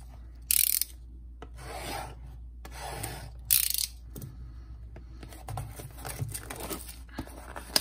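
Hands rubbing and scraping a cardboard trading-card blaster box as it is turned over, with two short sharp scrapes. From about five seconds in, fingernails pick and click at the box's flap to open it.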